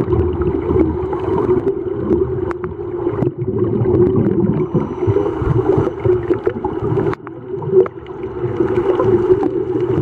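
Muffled underwater sound picked up through a waterproof camera housing: a steady low hum over a rumbling wash, with scattered small clicks. It dips briefly about seven seconds in.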